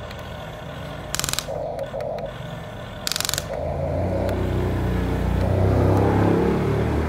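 Huina remote-control toy excavator working its boom and bucket: short whirs from its small motors, two brief harsh bursts about one and three seconds in, then a steady engine-like drone that builds and grows louder toward the end.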